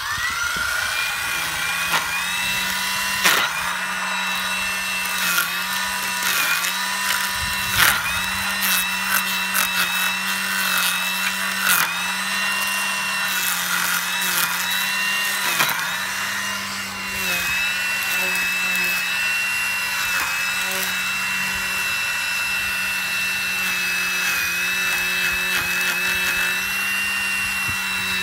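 Kobalt 80V cordless string trimmer fitted with a Badgerhead metal-reinforced blade head, its electric motor running with a steady whine. The pitch dips briefly each time the blades bite into woody stems of small saplings, with sharp ticks and cracks as they strike the brush. The dips come several times in the first half, and the whine runs steadier near the end.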